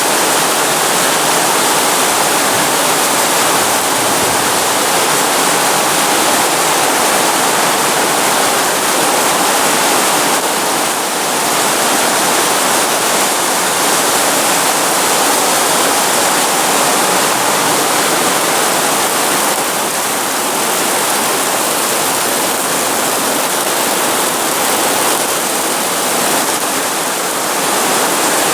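Very heavy rain pouring down: a loud, steady rushing hiss that barely changes, with slight lulls now and then.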